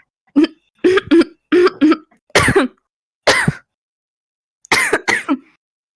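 A young woman's deep, barking smoker's cough: about ten short coughs and throat-clearings, some in quick pairs, then a gap of over a second before a final run of three.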